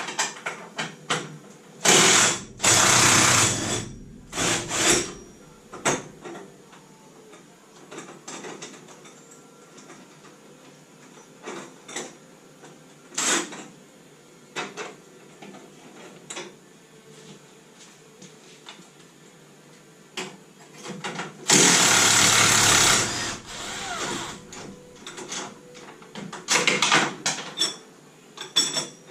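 Mechanic's tools at work on a classic Mini during engine removal: scattered ratchet clicks and metal clinks, with two loud bursts of a power tool, each about two seconds long.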